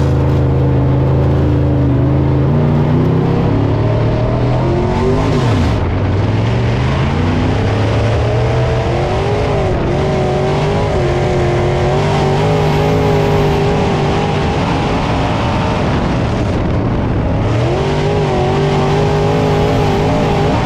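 Onboard sound of a dirt late model's 604 crate small-block V8 running hard around a dirt track. The engine note drops sharply and climbs back up about five seconds in and again later, as the driver lifts for the turns and gets back on the throttle.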